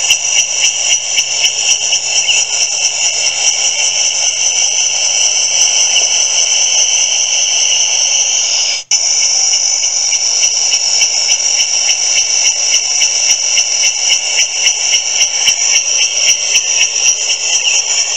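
Custom brake-triggered sound-effect speaker playing a cicada-call sound file: a loud, shrill, rapidly pulsing buzz that breaks off for an instant about nine seconds in and then carries on.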